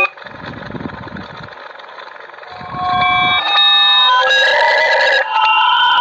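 Dial-up modem connecting over a phone line. A few seconds of bursts of line noise give way to the handshake: steady tones stepping in pitch, then loud screeching and hissing from about three and a half seconds in.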